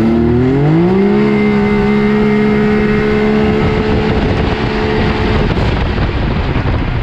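Can-Am Maverick X3 Big Turbo's turbocharged three-cylinder engine accelerating flat out from a standing start, heard from the cab. The revs climb for about the first second, then hold at one steady pitch while the CVT shifts out and speed builds. About five seconds in, the engine tone gives way to a rushing noise.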